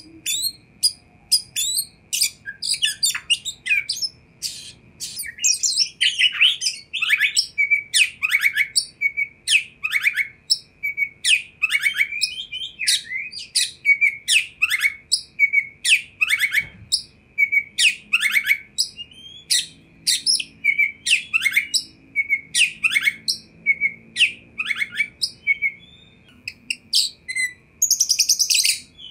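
Oriental magpie-robin singing a fast, varied song of short whistled notes, slurs and chatter, with a harsher rasping burst near the end.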